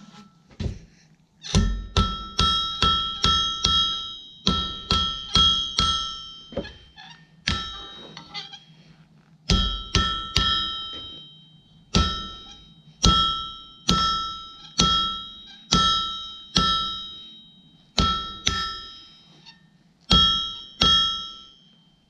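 Blacksmith's hammer striking hot half-inch square steel stock on an anvil as the end of a door handle is flattened and shaped. The blows come in quick runs of about three a second with short pauses, and each one leaves a clear metallic ring.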